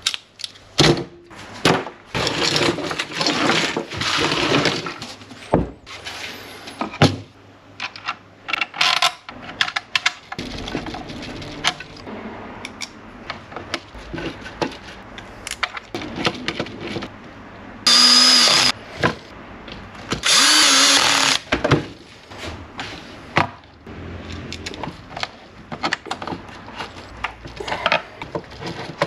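Workbench assembly of 12 V electrics: clicks, knocks and rattles of small parts and wires being handled and fitted into a plywood box. A cordless drill runs in two short bursts about two-thirds of the way in, each with a steady whine.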